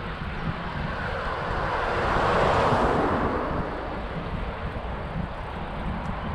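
Wind buffeting a helmet-style action camera's microphone while riding on a road, with a vehicle passing: its rushing tyre noise swells to a peak about two and a half seconds in, then fades.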